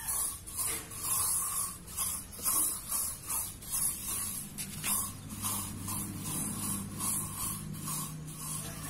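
A brush scrubbing over a motorcycle's parts in short, even strokes, about two a second. A faint low hum runs underneath from about halfway through.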